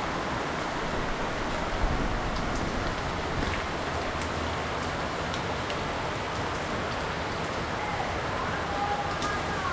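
Steady rain falling, with scattered drops ticking on surfaces.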